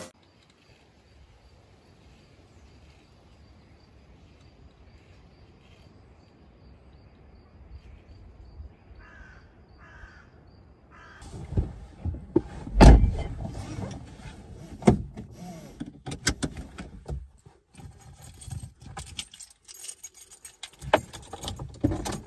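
A crow caws twice, faintly, about nine seconds in. From about eleven seconds on, clicks and knocks sound inside a car with keys jangling, the loudest a sharp knock about thirteen seconds in.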